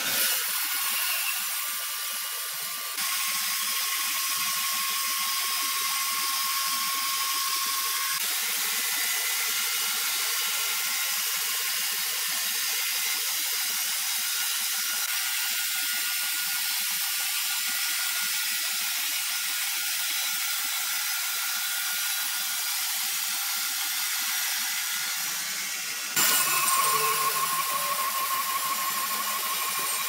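Horizontal band sawmill blade cutting lengthwise through a large squared timber: a steady high-pitched hiss and whine, changing abruptly about 3 seconds in and again near the end.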